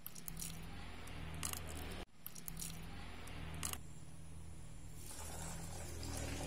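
Ingredients being poured into the metal jug of an electric soup maker: a soft stream of milk onto oats and pumpkin, then a small metal bowl tipped in, with a few light clinks and scrapes against the jug. A low steady hum runs underneath.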